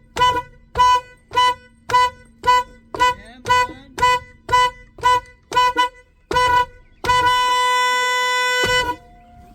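2010 Honda Odyssey's electric car horn sounding in a quick series of about a dozen short toots, roughly two a second, then one long blast of about two seconds: the horn working again now that its unplugged connector has been reconnected.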